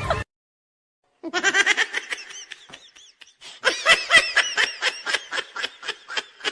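Laughter sound effect: high-pitched giggling in rapid, quick pulses, starting about a second in after a brief silence, with a short break near the middle.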